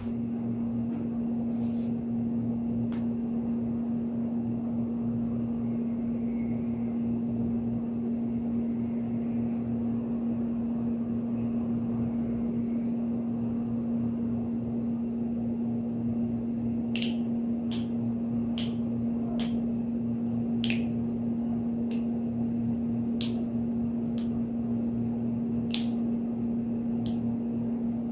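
Steady electrical hum, a low constant tone, running through a newly connected V800 sound card and condenser microphone chain. In the second half it is joined by a string of about a dozen sharp clicks, roughly one a second.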